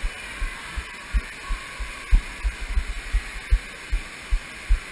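A toddler's footsteps, carried as dull low thumps through a GoPro worn on her body, about three a second and slightly uneven, over a steady background hiss.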